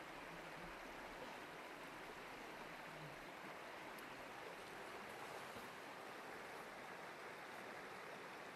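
Faint, steady rush of running stream water.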